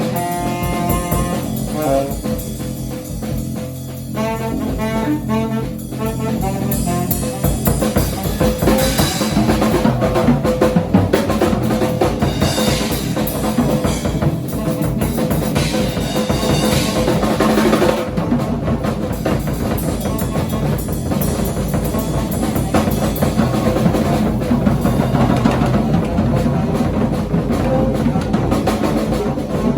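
Live improvised jazz-rock band playing: a tenor saxophone line over bass and drum kit. The first few seconds carry short repeated horn notes, then the drums and cymbals thicken into a fuller, busier groove.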